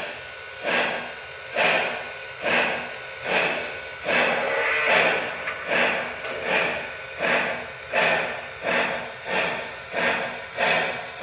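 Lionel Legacy Camelback 4-6-0 model steam locomotive's sound system chuffing as the engine pulls away, the chuffs coming steadily faster as it picks up speed.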